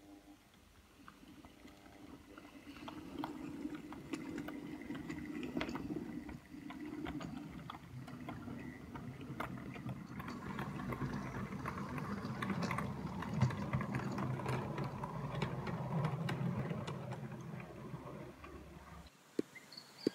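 OO gauge model train running through a station: the model locomotive's motor whirring, with the wheels of the locomotive and coaches clicking over rail joints and pointwork. It grows louder as the train passes, then stops abruptly near the end.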